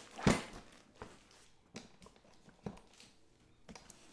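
Handling knocks and clicks from a plastic infant car seat and its base: one loud knock just after the start, then a few fainter clicks spaced about a second apart.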